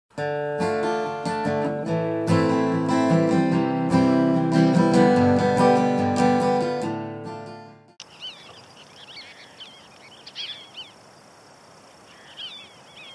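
Plucked-string intro music that fades out about eight seconds in. It gives way to faint outdoor background with short clusters of high calls from Cassin's kingbirds.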